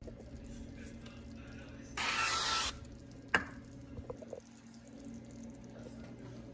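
Aerosol avocado oil cooking spray hissing in one short burst of under a second, about two seconds in, as it greases a glass baking dish. A sharp knock follows about a second later.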